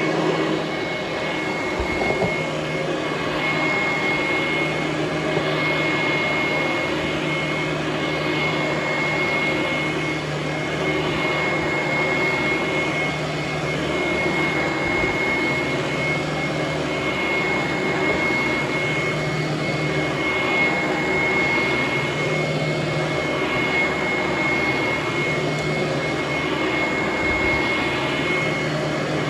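Hoover Conquest upright vacuum cleaner running continuously on carpet: a steady rush of air with a high motor whine over it, loud enough to be likened to a jet engine.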